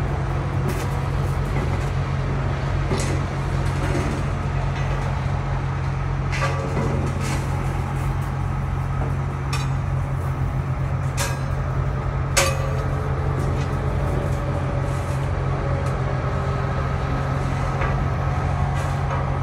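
Heavy diesel engine running steadily at a construction site, with a few sharp metallic clanks of steel on steel.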